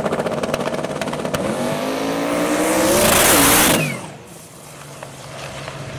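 Twin-turbocharged 427 cubic inch LS-based V8 of a methanol-fuelled drag car on the start line, running with a crackling, pulsing note, then launching: the engine note rises steeply and grows very loud as it accelerates hard. The sound drops away suddenly just before four seconds in, leaving a fainter engine sound.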